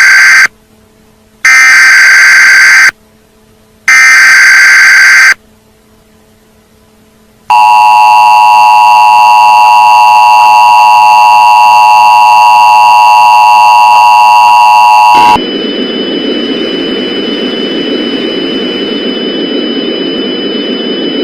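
Emergency Alert System tones: the end of one screeching burst of SAME header data and two more, each about a second and a half with a short gap between, then after a pause the two-tone EAS attention signal held for about eight seconds. It cuts off into a quieter steady hiss with a faint high whine.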